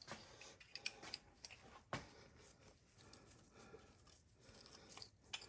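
Faint, scattered clicks and light scrapes of metal engine parts being handled: a connecting rod cap being fitted back onto its rod, with one sharper click about two seconds in.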